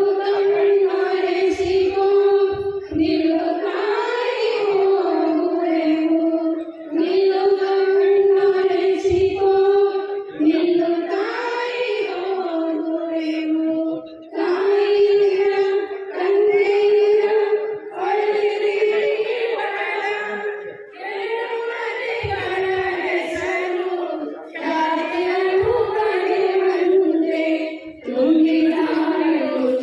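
Slow chant-like singing by fairly high voices, in long held phrases of two to three seconds with short breaks between them.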